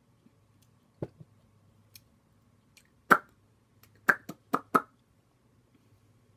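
A person's mouth and throat sounds after a swallow of a strong drink: a soft thump about a second in, then a short loud burst a little after three seconds and four quick ones close together near the end, like sharp breaths and lip smacks at the burn of the alcohol.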